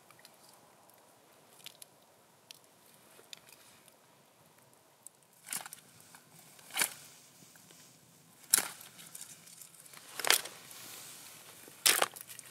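Knife cutting twigs off a thin branch: five sharp cracks about every one and a half seconds in the second half, after faint scattered clicks.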